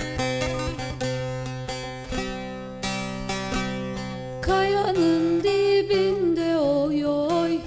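Bağlama (Turkish long-necked saz) plucked in a folk melody. About halfway through, a voice comes in singing a wavering, bending line over it.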